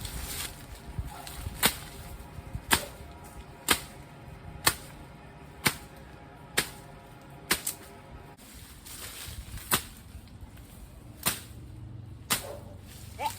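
Sundang (bolo knife) hacking at a papaya tree trunk: about a dozen sharp chops, roughly one a second, with a short pause past the middle.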